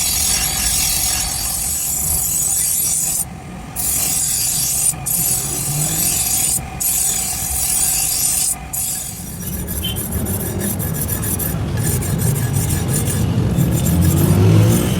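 A steel knife blade being sharpened against an abrasive: a loud, high-pitched hissing rasp in long passes, broken by brief pauses, for about nine seconds. After that the rasping stops, leaving a lower hum with a few clicks.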